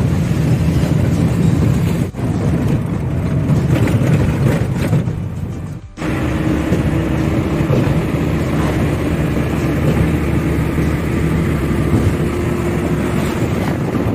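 Steady engine and road noise of a car driving, heard from inside the cabin, breaking off briefly twice where the shots are cut.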